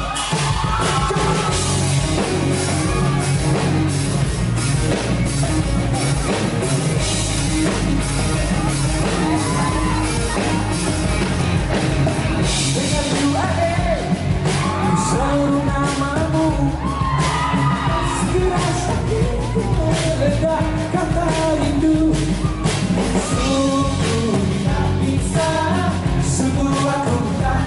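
Live rock band playing loudly over a PA: a man's lead vocals over electric guitar, bass guitar, keyboard and drum kit.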